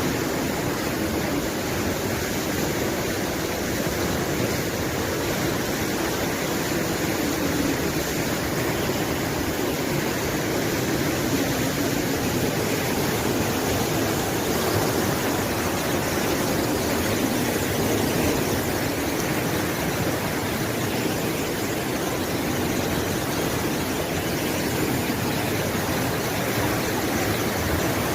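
River rushing: a steady, loud roar of fast-flowing water.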